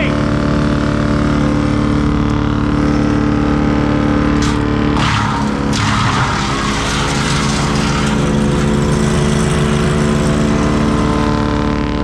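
Wood chipper's twin-cylinder Honda engine running steadily at high throttle. About four and a half seconds in, the chipper bites into a branch and chews through it with a loud crunching for about a second and a half, the engine note dipping briefly under the load.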